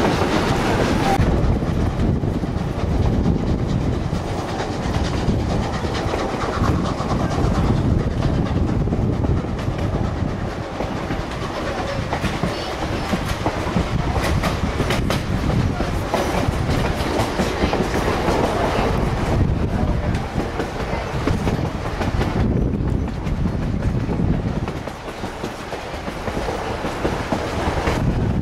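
Narrow-gauge passenger train running along the track, heard from beside a moving coach: a steady rumble with the wheels clacking over the rail joints.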